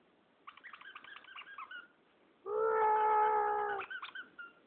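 A plush dog toy's squeaker being squeezed: a run of short, high chirping squeaks, then one loud, steady squeal lasting over a second about halfway through, and a few faint chirps after it.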